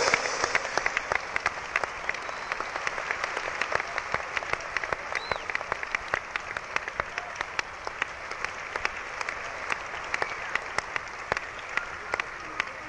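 Audience applause, loudest at the start and gradually thinning and fading, with single sharp claps standing out from the clapping.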